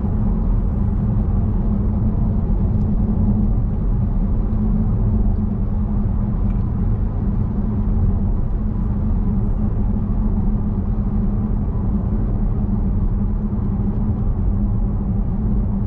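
Steady low rumble of a car's engine and tyres at highway cruising speed, heard from inside the cabin.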